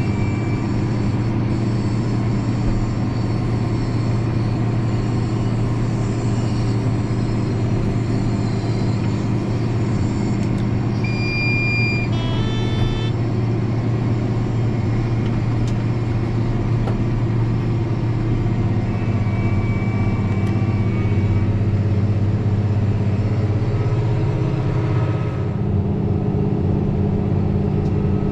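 Deutz Fahr 6175 TTV tractor's six-cylinder diesel running steadily as heard inside the cab while it pulls a chisel plow, its note shifting about three-quarters of the way through. A few short electronic beeps from the cab controls sound a little before halfway.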